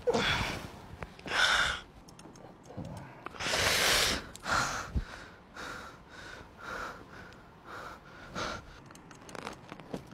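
A man gasping and breathing hard in a run of sharp, separate breaths, the loudest in the first half, as he comes to in a startled panic.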